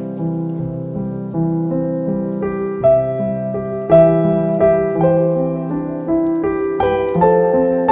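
Background piano music: a slow melody of separate notes, each struck and fading, over held lower notes.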